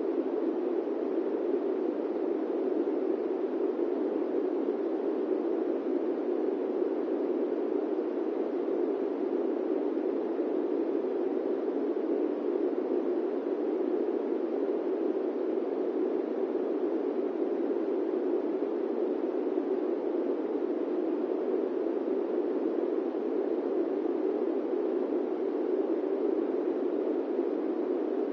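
Steady airplane cabin noise: an even, low rushing sound with no distinct tones or changes.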